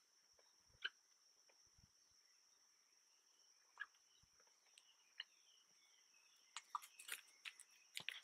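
Near silence: a faint, steady, high-pitched insect drone with scattered soft clicks, which come more often near the end.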